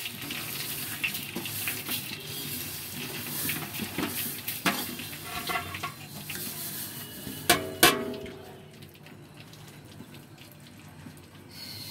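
Dry-roasted vermicelli sliding from a plate into hot ghee in an aluminium pot, with a steady hiss and rustle while a wooden spatula scrapes and knocks against the pot. There are a few sharp clinks around the middle, and it quietens about eight seconds in.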